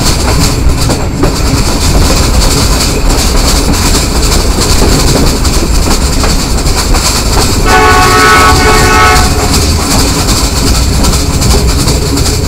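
Passenger train running, heard from the side of a moving coach: a steady rumble of wheels on rail with wind noise. About eight seconds in, a train horn sounds once, a steady blast of about a second and a half.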